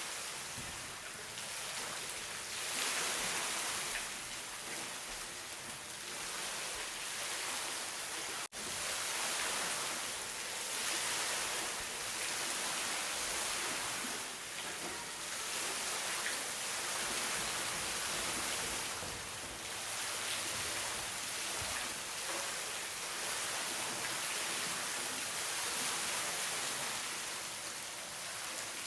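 Flowing water in a forest, a steady rushing hiss that swells and eases slightly, with a momentary dropout about eight and a half seconds in.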